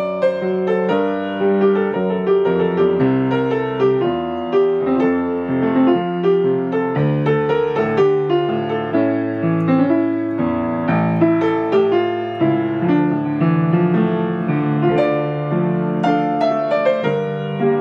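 Upright piano played solo: a melody over chordal accompaniment, notes sounding without a break.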